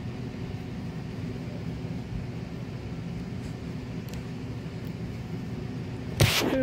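Steady low purring of a cat being stroked, close to the microphone. Near the end a brief loud sound cuts in, and a voice begins.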